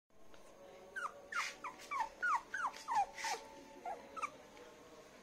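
Young poodle puppy whimpering: a run of about nine short, high squeaks, about three a second, each sliding down in pitch.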